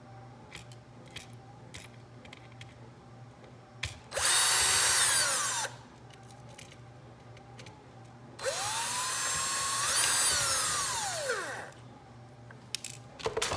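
Power drill backing screws out of a calculator's case in two runs: a short burst about four seconds in and a longer run of about three seconds. In each run the motor whine rises, holds, then winds down in pitch as it stops. Light handling clicks come between the runs.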